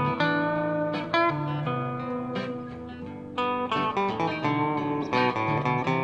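Live band playing an instrumental passage on electric guitar, acoustic guitar and acoustic bass guitar, plucked notes over a moving bass line, with no singing. It eases off briefly about halfway through, then comes back in with a strong note.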